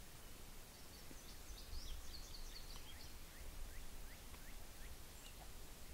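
Faint bird calls: a quick run of high chirps and short rising notes about a second in, lasting two to three seconds, over a steady low rumble of wind.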